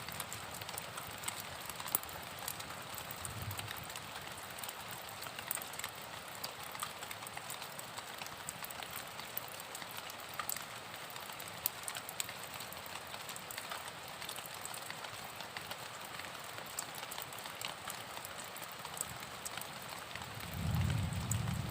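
Steady rain falling, an even hiss scattered with the sharp ticks of single drops. A brief low rumble rises near the end.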